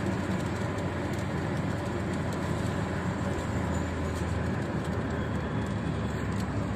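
Steady cabin noise of a car driving on a motorway in rain: a low drone of tyres and engine under a hiss of rain on the windshield, with faint scattered raindrop ticks.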